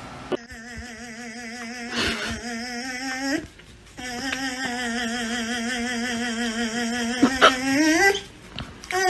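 German Shepherd puppies play-fighting, one giving long, wavering whine-growls. There are two drawn-out calls of about three and four seconds, each ending on a rising pitch.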